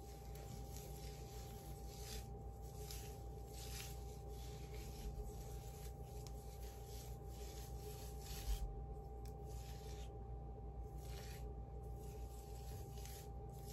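Fingers rubbing and raking a slippery conditioning treatment through wet, product-saturated hair: soft, irregular swishing, with a brief low bump about eight and a half seconds in.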